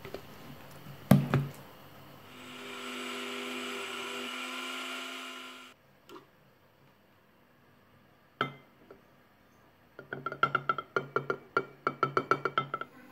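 Ufesa electric blender grinding rolled oats into oat flour, a steady motor whine for about three seconds that cuts off suddenly. A knock comes about a second in, and near the end a run of quick light taps as the flour is tipped from the glass jug into a glass jar.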